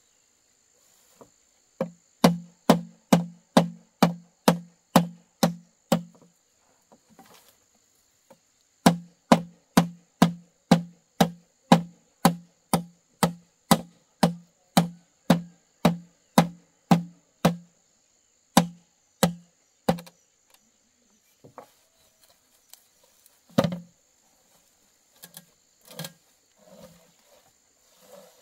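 Repeated blows of a hand tool, about three a second, each a sharp knock with a short low ring, in two long runs with a pause between and a few scattered knocks near the end.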